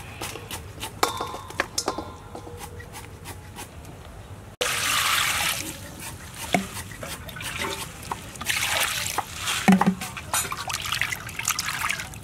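Light taps and wet handling as skinned frogs are moved into a steel bowl. Partway through, water suddenly pours into the bowl, followed by splashing and sloshing as hands wash the frogs in it.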